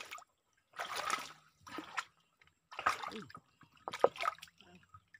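Hands splashing and rummaging in shallow stream water among stones while picking snails, in four short splashes about a second apart.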